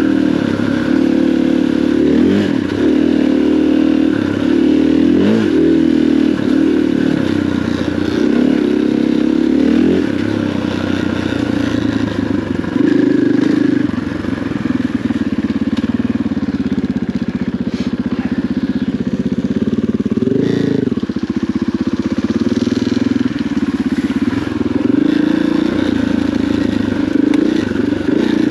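KTM 500 EXC enduro dirt bike's single-cylinder four-stroke engine running under the rider's throttle. The revs rise and fall every second or two in the first part, then hold steadier, with one sharp rev about two-thirds of the way through.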